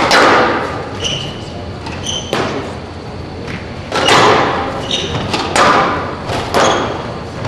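A squash rally: the ball is struck hard by racquets and slams into the court walls, a sharp crack every second or so that echoes in the hall. Short high shoe squeaks on the court floor come about a second and two seconds in.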